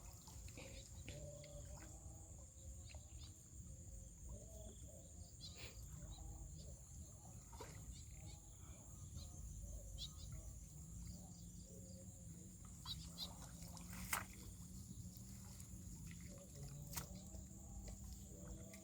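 Faint outdoor ambience: a steady high-pitched drone over a low rumble, with a few sharp clicks and knocks scattered through.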